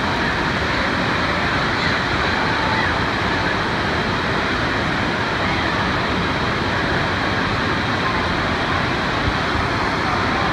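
Steady din of an indoor water park: rushing, spraying water from fountains and slides, with faint shouts of children.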